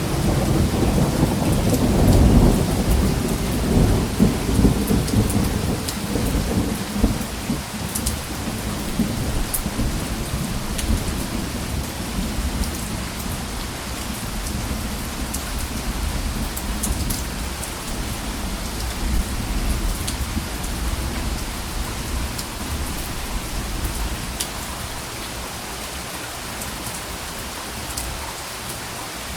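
Steady rain falling, with sharp drops ticking now and then, and a low roll of thunder that peaks about two seconds in and dies away over the next few seconds.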